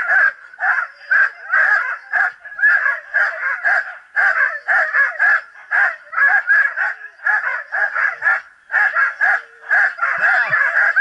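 A dog yelping and barking over and over, high-pitched and rapid, two or three calls a second with hardly a pause: the excited yelping of a dog held back at the start line, eager to run.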